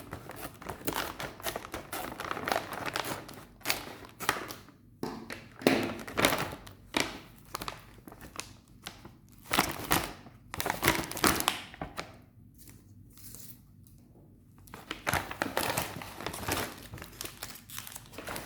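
Plastic snack packaging being torn open and crinkled by hand, in irregular bursts of rustling with a quieter spell in the middle, as a packet of wrapped chocolate bars is opened and the bars handled.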